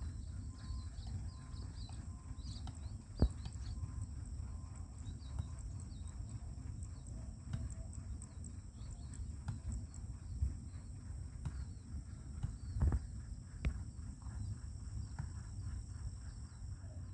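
Quiet rural outdoor ambience: a steady high-pitched insect drone with faint bird chirps over a low rumble, and a few soft knocks, about three seconds in and twice near the end.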